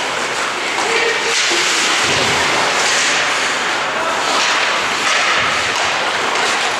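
Ice hockey game in a rink: skates carving and scraping on the ice in a steady hiss, with a few louder scrapes, and players' voices calling out.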